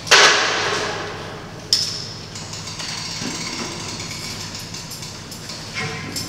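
A loud sharp knock that rings out and fades slowly in a large echoing hall, then about a second and a half later a second, sharper hit with a high metallic ring.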